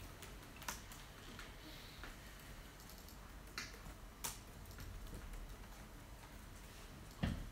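Faint, scattered clicks of computer keys in a quiet room, a few isolated taps a second or more apart, with a louder thump near the end.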